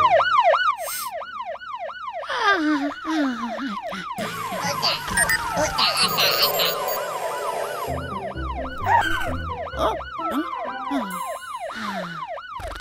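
Cartoon fire truck siren sounding a fast yelp, a rising-and-falling wail about four times a second, with cartoon music and sound effects over it in the middle.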